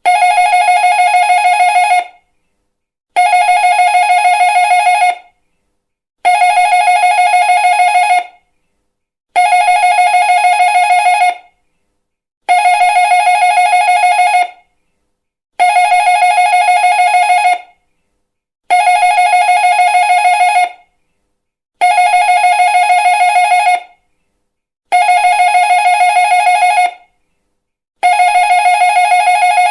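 Electric doorbell ringing with a fast trill, in identical rings about two seconds long with a one-second pause between, ten times over.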